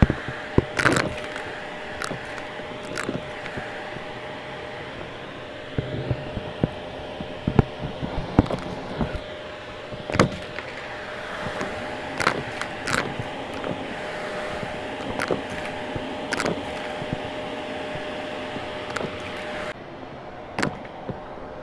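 Vacuum cleaner running with a crevice tool on a shag rug, with irregular sharp crackles and clicks as crunchy debris is sucked up through the tool.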